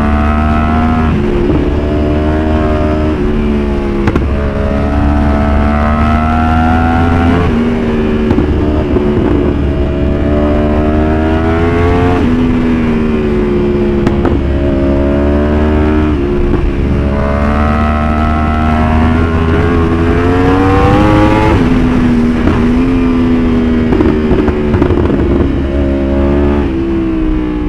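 Yamaha R1 sportbike's inline-four engine accelerating hard through the gears. The pitch climbs and then drops sharply at each upshift, over and over.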